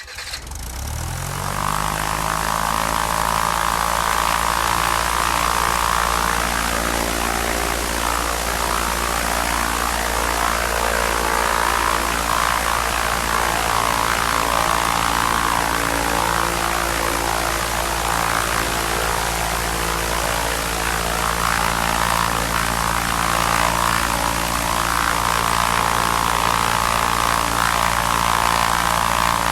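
Airplane engine starting up: it spins up in pitch over the first second or two, then runs at a steady, loud drone.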